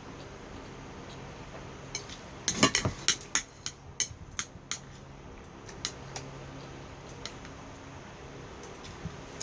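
Utensils clinking and tapping against dishes: a quick run of sharp clicks about two seconds in, then a few scattered taps, over a steady low hum.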